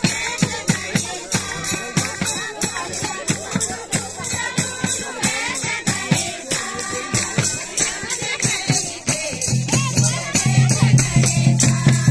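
Folk music with singing over a quick, steady percussion beat of about four rattling strokes a second. A loud low steady tone joins about three-quarters of the way through.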